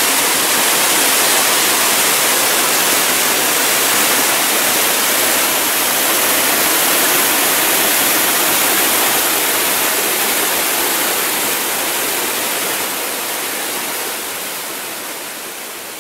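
Dry Falls waterfall heard up close: a loud, steady rush of falling water. It fades slowly over the last several seconds.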